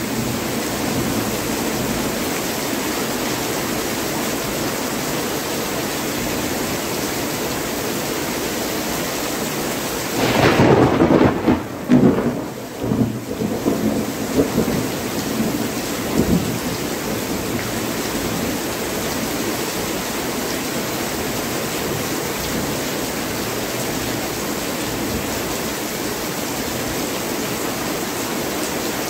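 Heavy rain pouring steadily. About ten seconds in, a loud peal of thunder rumbles on in waves for several seconds before the rain alone is left.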